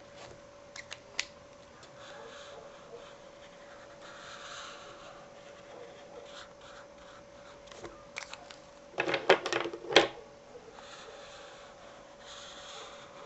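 Felt-tip marker drawing on paper in soft scratchy strokes over a faint steady hum. About nine seconds in comes a quick run of sharp clicks and knocks, the loudest sound.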